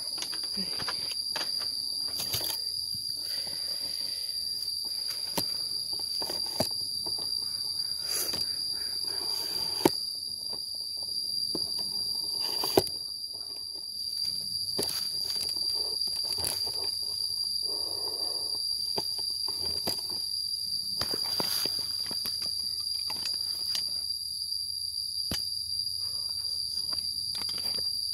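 Insects calling in a steady, unbroken high buzz, with scattered clicks, knocks and footsteps from the camera being carried and set down.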